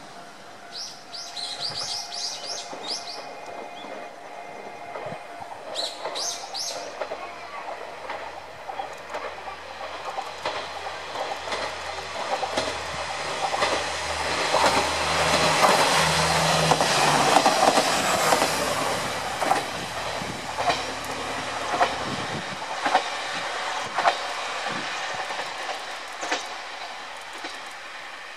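Two-car KiHa 47 diesel railcar passing through a station without stopping: its diesel engine drone grows as it approaches and is loudest near the middle. As the cars go by and move away, the wheels clack over the rail joints and the sound fades.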